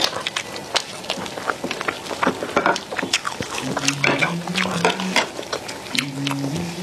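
Close-miked mukbang eating sounds: dense, irregular wet clicks of chewing and lip smacking, mixed with plastic-gloved hands pulling apart a braised pork knuckle.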